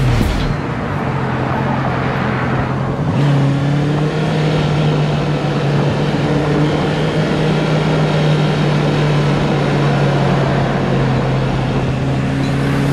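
Honda CB650R inline-four engine running at a steady cruise, with road and wind noise. The engine note drops away just after the start and picks up again about three seconds in.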